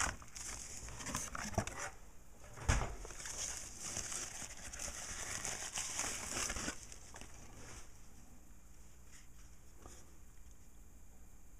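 A thin plastic protective bag crinkling and rustling as a camcorder is pulled out of it, with one thump about three seconds in. After about seven seconds only faint handling sounds remain.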